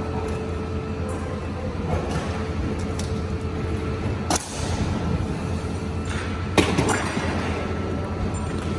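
Steady low mechanical hum of machinery, with two sharp clanks, one about four and a half seconds in and one about six and a half seconds in.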